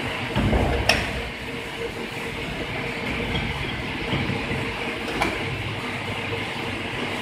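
Electric worm-gear motor of a pellet batch fryer running its stirring arm: a steady mechanical hum with a constant whine. There is a low rumble about half a second in and two sharp clicks, about one second and five seconds in.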